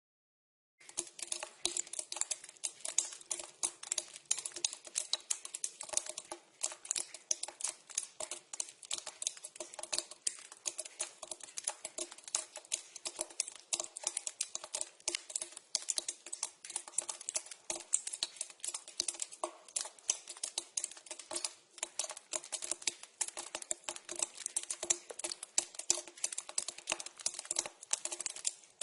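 Water dripping into a pipe: many quick drops in a dense, irregular ticking patter. It starts about a second in.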